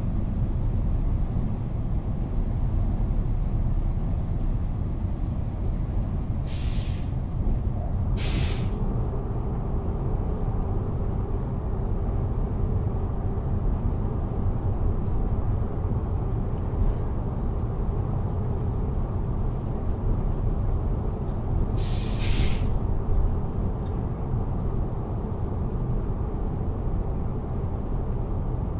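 Steady low rumble of a moving train heard from inside a passenger car. Three short hisses come through, two close together about a third of the way in and one more about three quarters of the way through.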